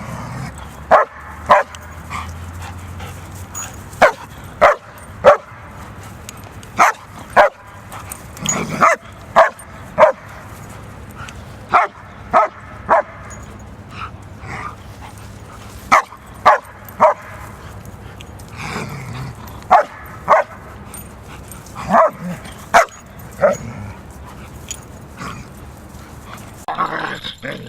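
A dog barking repeatedly: about two dozen short, sharp barks, mostly in quick pairs or threes with pauses of a second or more between the groups.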